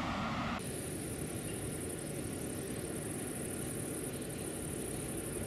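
Insects chirping in a steady, high, fast-pulsing trill that starts about half a second in, over a low, even background rumble.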